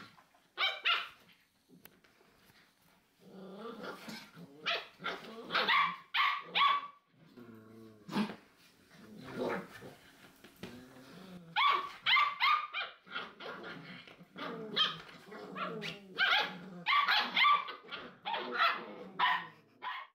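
Rough collie puppies barking and growling in play: clusters of short, high yaps and yips, with a lower drawn-out growl partway through.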